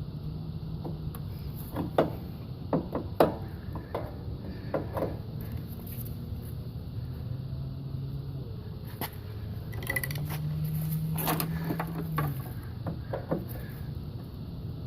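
Scattered metal clicks and knocks as pliers twist the end of a steel tension spring against the riding-mower frame, working it toward its mounting hole. A steady low hum runs underneath.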